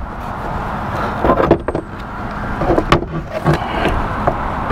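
Scattered light knocks and clicks as the soft start module and its wires are handled and set in position inside the opened rooftop RV air conditioner, over a steady rushing noise.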